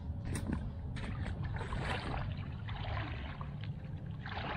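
A man in waders wading through shallow lake water, the water sloshing and splashing about once a second. Wind rumbles on the microphone throughout.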